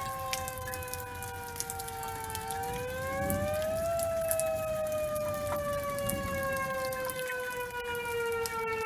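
Outdoor tornado warning siren wailing: a pitched tone that slides slowly down, rises again about two and a half seconds in, then falls slowly once more.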